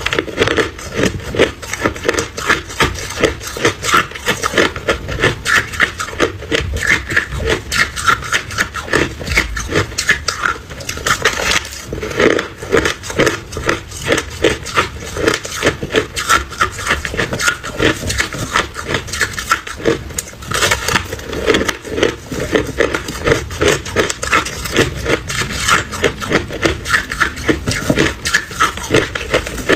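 Ice being chewed up close, a steady run of loud crunches at about two to three a second.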